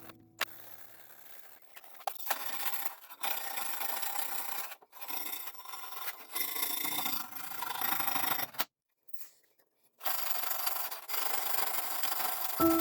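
A rusty spanner being abraded by hand: rasping, rubbing strokes of a file or abrasive on the metal come in several stretches, with a short silent break about nine seconds in.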